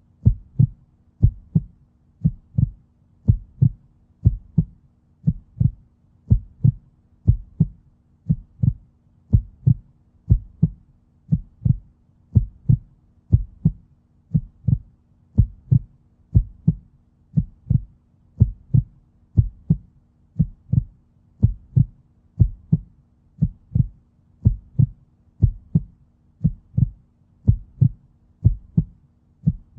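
Heartbeat sound: a steady, even rhythm of paired lub-dub thumps, about one beat a second, with a faint steady hum underneath.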